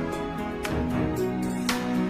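Background music: a soft instrumental track with sustained notes and a steady beat.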